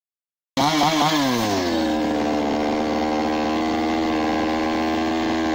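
Restored two-stroke gasoline chainsaw running. It cuts in about half a second in and is blipped up and down a few times. Its pitch then falls and it settles into a steady idle.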